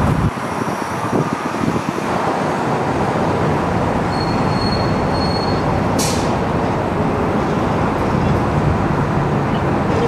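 Steady running noise of a moving vehicle, with a thin high squeal for about a second and a half near the middle and a short hiss about six seconds in.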